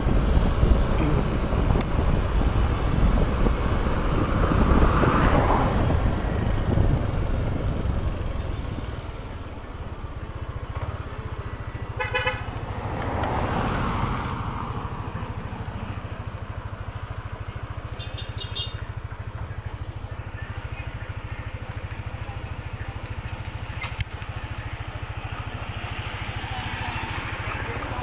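A motor scooter on the road in traffic: loud engine and road noise with passing swells, which drop to a steadier, lower running sound after about nine seconds. A brief horn toot sounds about twelve seconds in, and a short high beeping follows a few seconds later.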